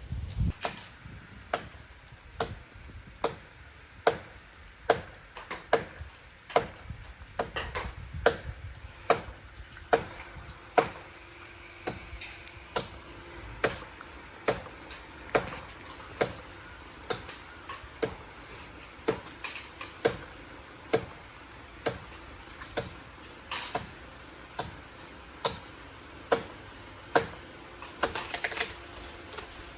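A hand tool striking wood in a steady rhythm, a little more than one sharp blow a second, as in chopping or driving a wedge during tree work. Near the end the blows give way to a short rough scraping burst.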